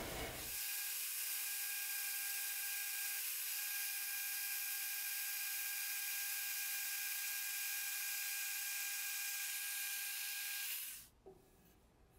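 Bandsaw running with a steady whine, cutting a slot into the top of a wooden hatchet handle for the wedge. It stops about eleven seconds in.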